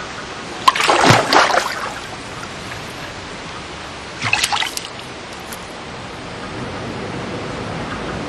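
A dog splashing in a swimming pool: two short splashes, the first and louder about a second in, a smaller one around four seconds in, over a steady trickling of water.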